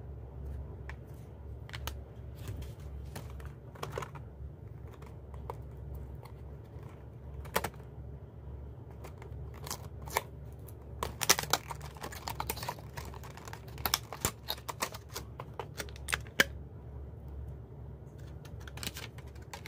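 Hands handling a power bank and its clear plastic packaging tray: scattered light clicks and taps, with a quick run of sharp plastic clicks and crackles about halfway through.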